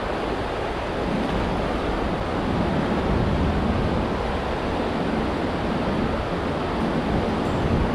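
Steady rushing of a shallow river flowing over stones and past bridge piers, with some wind on the microphone.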